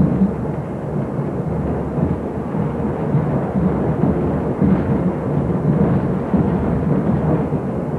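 Peter Witt streetcar from 1922 running along the track, heard from inside the car: a steady low rumble of wheels and running gear.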